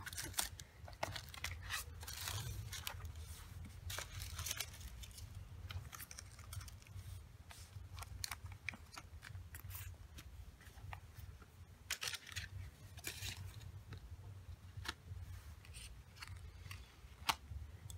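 Cardboard cards, packets and small product boxes being handled and set down by hand: faint rustling and scraping of paper and card, with scattered light taps and clicks.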